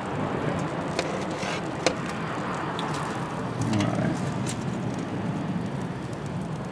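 Metal grill tongs clicking against a slotted grill grate and a metal sheet pan as bacon-wrapped jalapeno poppers are lifted off, with two sharp clicks about a second apart over steady outdoor background noise.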